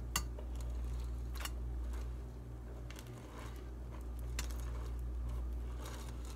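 A spatula working sticky marshmallow-and-rice-cereal mixture out of a pot into a wax-paper-lined baking dish: a few scattered soft clicks and knocks, over a steady low hum.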